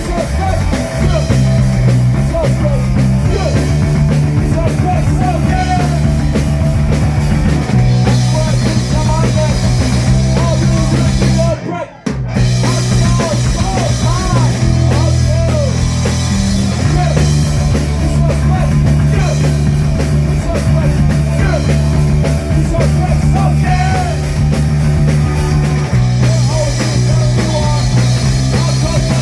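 Rock band playing live at full volume: drum kit, bass and electric guitar in a punk-rock groove. The whole band stops dead for a moment about twelve seconds in, then comes straight back in.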